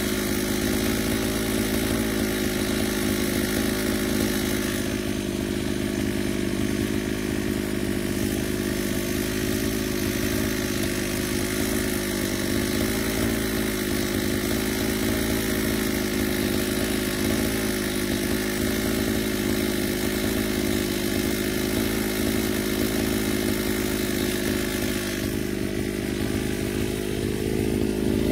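Petrol brush cutter (grass trimmer) engine running at a steady high speed while its nylon-line head cuts grass.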